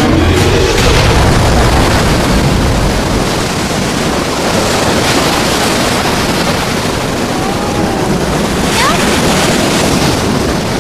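Loud rushing, surging water, as in a flood or wave sound effect: a dense, continuous wash with no break.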